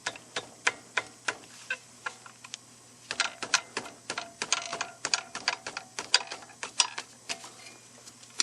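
Hand ratchet clicking as a brake caliper bolt is turned out, a run of sharp metallic clicks a few per second that comes quicker and rings slightly from about three seconds in.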